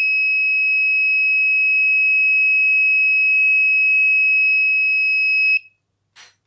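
Small electronic buzzer on an Arduino breadboard sounding one long, steady high-pitched beep, triggered by a flame sensor detecting a lit match. It cuts off suddenly near the end as the flame is taken away.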